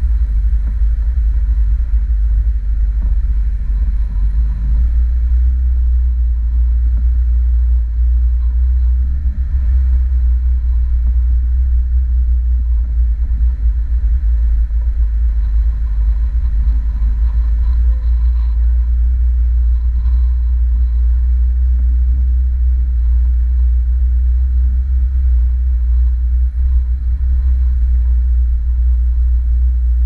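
Steady low rumble of a 1990 VAZ 21063 with its 1300cc four-cylinder engine, driving slowly along a rutted dirt track, picked up by a camera mounted outside on the car.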